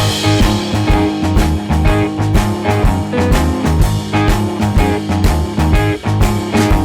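Background music: upbeat rock-style track with guitar, bass and drums keeping a steady beat.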